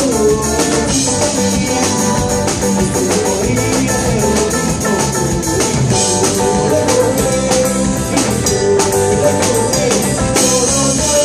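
A live rock band playing an instrumental passage: electric guitar, electric bass and a drum kit keeping a steady beat, with a saxophone carrying a wavering melody line.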